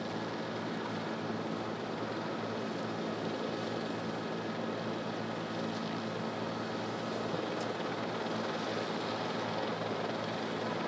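Steady drone of a news helicopter's engine and rotors with a constant low hum and hiss, picked up by its onboard microphone.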